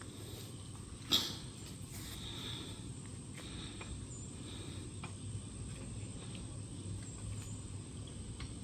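Quiet outdoor background: a steady low rumble and a thin, steady high-pitched tone, broken by one sharp click about a second in and a few faint ticks after it.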